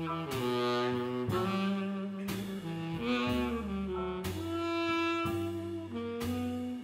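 Live swing jazz quartet: a saxophone plays a melody of held notes over piano, double bass and drums. The beat is marked by strokes about once a second.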